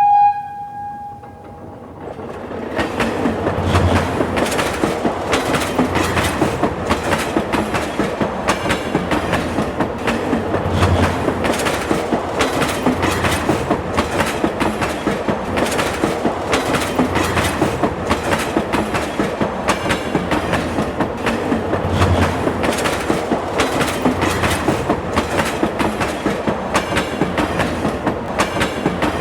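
Train horn sounding a single held note that stops about a second in, followed by a train running past with a continuous rhythmic clickety-clack of wheels over rail joints.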